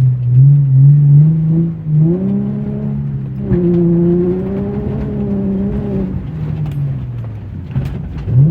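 Nissan V35 Skyline's V6 engine pulling hard under acceleration. Its pitch climbs, steps up again about two seconds in, holds high, falls away after about six seconds as the throttle comes off, and rises again near the end.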